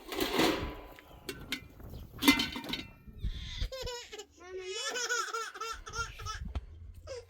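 A young child laughing and vocalising in short high-pitched peals through the second half. This follows a brief rustling burst and a sharp knock in the first couple of seconds.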